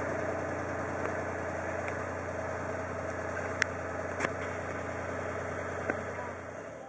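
An engine idling steadily, with a couple of sharp clicks in the middle; it fades out just before the end.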